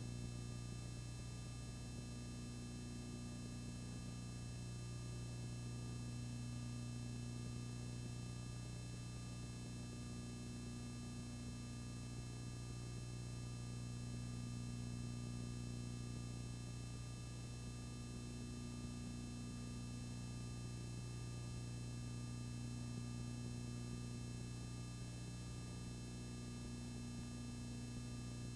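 Steady electrical hum, a low buzz with a few faint high whining tones above it, unchanging throughout.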